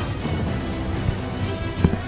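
Instrumental music with held tones and occasional percussive hits.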